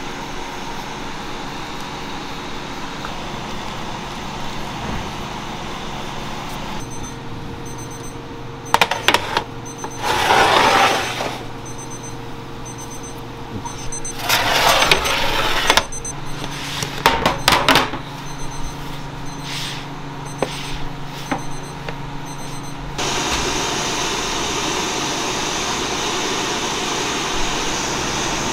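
Bakery kitchen sounds: a steady hum of ventilation and kitchen equipment, with sharp clanks and knocks of metal trays and pans and two loud bursts of hissing about ten and fifteen seconds in. From about two-thirds of the way through, a louder steady rushing noise takes over.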